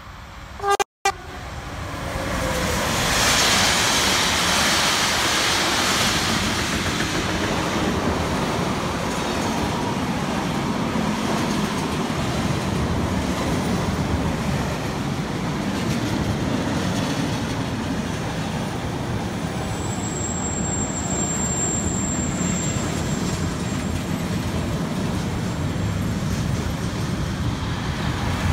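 Intermodal freight train passing close by. A short horn toot sounds about a second in, then the electric locomotive goes by with a swell of noise. A long, steady rumble of container wagons rolling over the rails follows.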